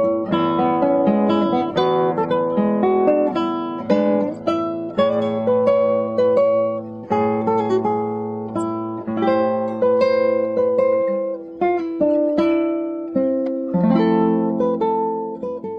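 Background music: acoustic guitar fingerpicking a flowing run of plucked notes, starting to fade out near the end.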